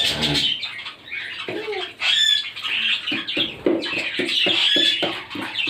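Pet cockatiel and budgerigars chattering and squawking: a dense run of short chirps and harsh calls, busier in the second half.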